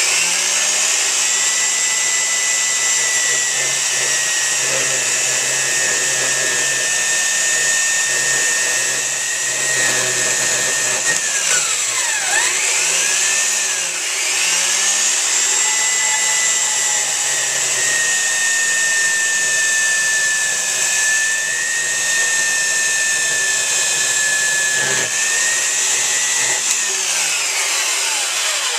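Electric motor of a shop power tool running steadily with a high whine. It slows and speeds back up about halfway through, and winds down again near the end.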